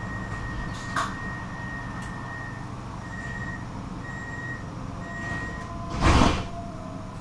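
Tram door warning signal: a steady high beep that breaks into three short beeps about a second apart, with a click about a second in. About six seconds in, the doors close with a short, loud burst of noise.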